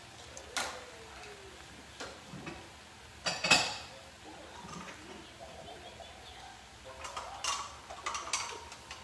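Kitchen dishes and utensils clattering as they are handled: a handful of separate sharp knocks and clinks, the loudest a quick double clatter about three and a half seconds in.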